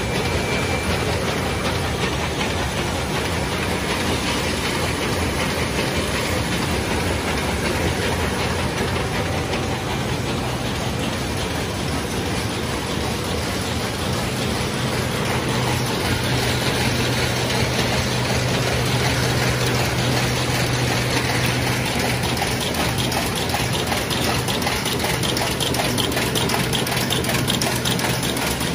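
A400 square-bottom paper bag making machine with its twisted-handle unit running: a steady, dense mechanical clatter of rollers and feed, with a low hum that grows stronger in the middle and a fast, even rattle toward the end.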